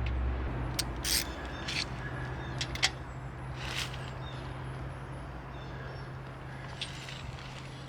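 Steady low hum over outdoor background noise, with a few short, sharp sounds, the strongest about a second in and about four seconds in.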